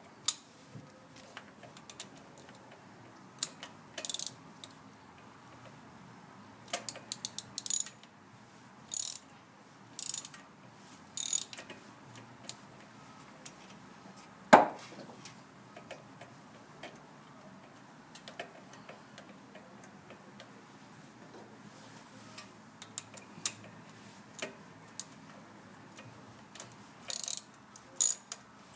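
Socket wrench ratchet clicking in short bursts of rapid clicks, turning a spark plug in the engine. There is one sharp knock about halfway through.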